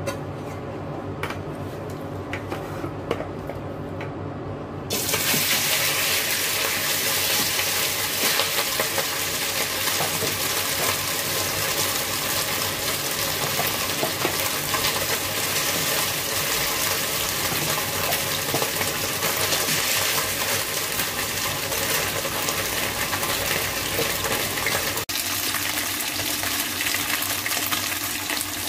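Pork spare ribs sizzling in hot oil in a stainless steel wok: a loud, steady hiss that starts suddenly about five seconds in, over a low steady hum.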